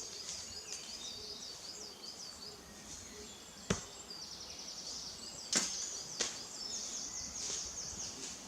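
A small songbird singing repeated high, quick trilled phrases, with three sharp cracks, one near the middle and two more about two and two and a half seconds later.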